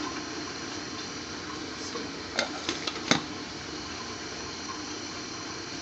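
Glass lid with a steel knob set onto a stainless steel pan: a few sharp clinks over about a second, the last the loudest. Under them runs a steady hiss.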